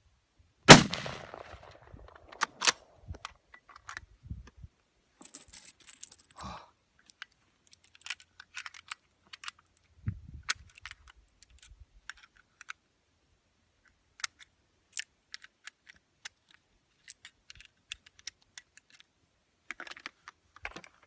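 A single shot from a Savage Axis II bolt-action rifle about a second in, followed by a couple of sharp metallic clicks and then a long run of small scattered clicks and rattles as the rifle is handled.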